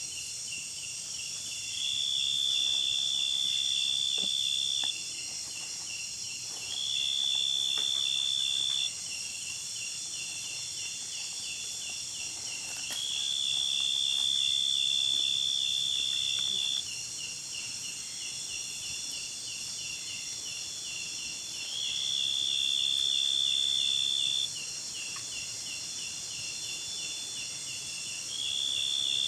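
Insects calling in chorus: a fast, even chirping pulse that never stops, overlaid by a high, steady whistle-like trill that comes and goes in bouts of two to four seconds, five times.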